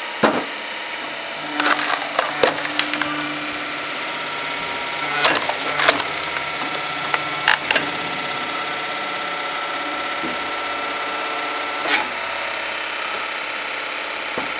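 Engine-driven homemade firewood processor running steadily, with clusters of sharp cracks and snaps from wood being split.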